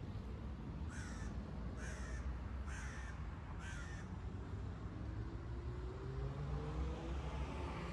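A bird calls four times, about a second apart, over a steady low city traffic rumble. In the second half a vehicle's engine note rises slowly as it speeds up.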